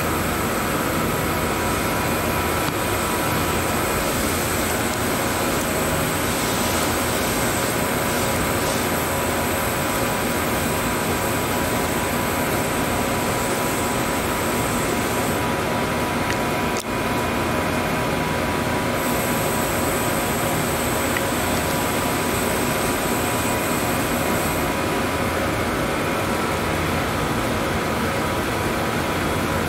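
Steady hum and hiss of cleanroom air handling, with a few steady tones running through it; it dips briefly once about halfway through.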